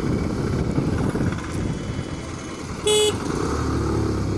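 Motorcycle engine running with wind rumble on the microphone while riding slowly through traffic. About three seconds in, a single short horn beep stands out as the loudest sound, followed by a steadier engine hum.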